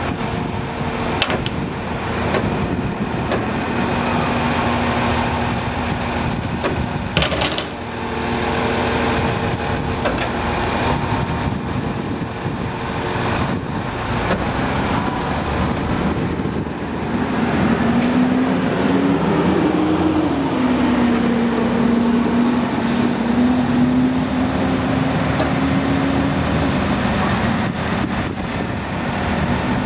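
Engine of a truck-mounted crane running steadily while it holds and positions its load. Its hum rises and dips in pitch for a few seconds past the middle.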